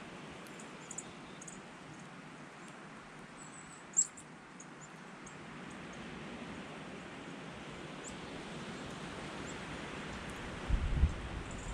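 Steady outdoor hiss of wind with a few short, very high bird chirps scattered through, the sharpest about four seconds in. Low rumbling buffets near the end.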